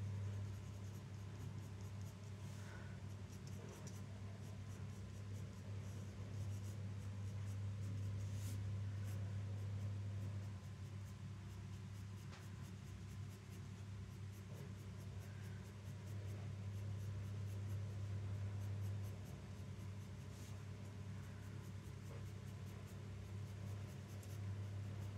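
Wooden graphite pencil scratching across paper in repeated shading strokes, over a steady low hum.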